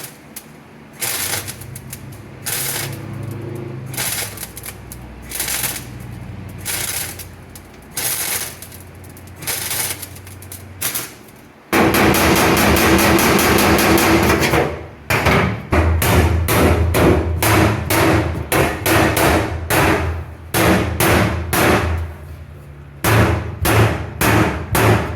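Welder laying a series of short tack welds on sheet-metal floor pan, each a brief crackling burst about a second apart over a low hum. About twelve seconds in comes one longer continuous weld of about three seconds, followed by quicker tacks, two or so a second.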